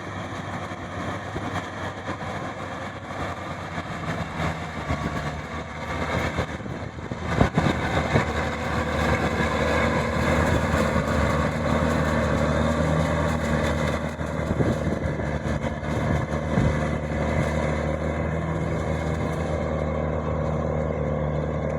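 Maxxi 85 combine harvester's engine running steadily under the noise of its machinery, with a sharp knock about seven seconds in.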